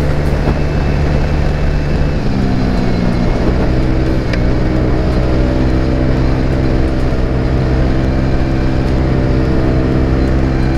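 TVS Ntorq 125 scooter's single-cylinder engine running at cruising speed through an aftermarket exhaust fitted with a dB killer, a steady engine note with wind rush on the microphone. The engine note shifts about two seconds in as the speed eases from the mid-90s to the mid-80s km/h, then holds steady.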